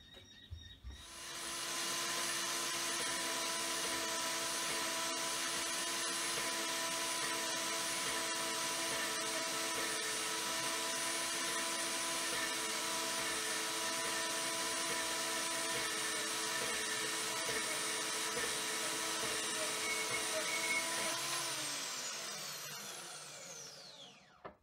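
Vevor portable metal-cutting bandsaw starting up about a second in and running steadily with a motor whine as its blade cuts through 6 mm mild steel flat bar. Near the end the motor is switched off and winds down with a falling pitch.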